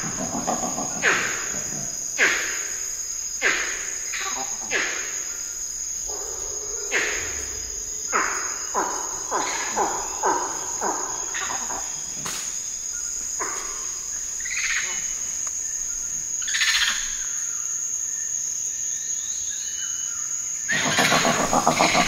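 Tropical rainforest morning soundscape: a steady high insect drone runs under a series of loud calls that fall in pitch, coming roughly once a second and thinning out after the middle. A louder, dense noise sets in near the end.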